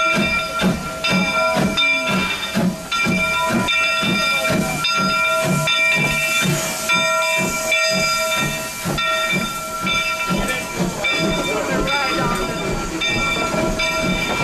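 Steam locomotive hissing steam, with a rhythmic pulsing beat about two to three times a second and a high steady whine that breaks off in step with each beat.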